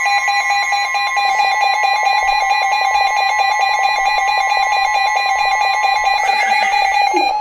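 Emergency Alert System attention tones from two alert broadcasts sounding together: loud, steady alarm tones, one of which drops out about six seconds in while the other carries on. They mark the start of a severe-weather warning message.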